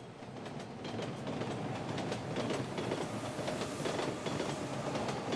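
Train running on rails, a rumble with repeated short clicks of the wheels, fading in and growing louder.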